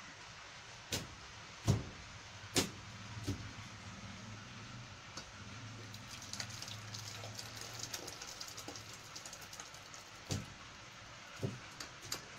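Metal pots clanking sharply several times as a hot pot of sambar is lifted and set against a steel vessel, with thick sambar pouring and splattering into the vessel in the middle.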